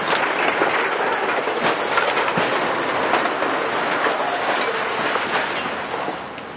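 Brick wall of an industrial hall collapsing in demolition: masonry and rubble crashing and clattering down in a continuous rattling rush of knocks, dying away near the end.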